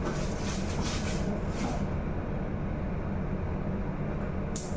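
Steady low rumble of gas burners running under two large stainless steel stockpots, with light handling noise on a pot lid in the first two seconds and a quick run of sharp clicks near the end.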